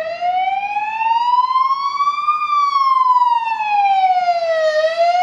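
Ambulance siren on a slow wail: a single tone sliding up for about two and a half seconds, falling for a little over two, and starting to rise again near the end.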